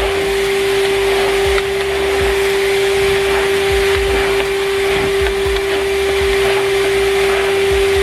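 Numatic Henry Wash wet and dry vacuum cleaner running steadily, its motor giving a constant hum over the rush of suction, with occasional soft low bumps.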